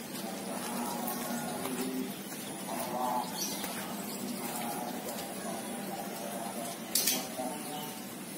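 Doves cooing repeatedly in the background, with one sharp click about seven seconds in.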